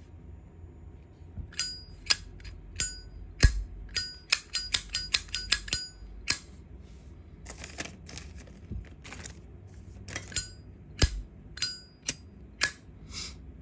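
Zippo lighter being handled, its hinged metal lid flicked open and snapped shut again and again: a run of sharp metallic clicks, many with a brief high ring.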